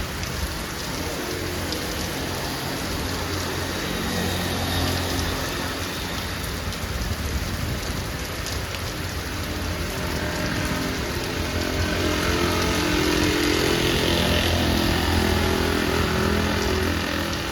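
Heavy rain falling steadily, with a low humming drone underneath that swells in the second half.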